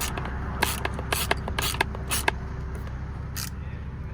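Hand ratchet tightening a small steering-wheel bolt, a run of short rasping ratchet strokes about twice a second, then one more near the end, over the steady low hum of the car idling.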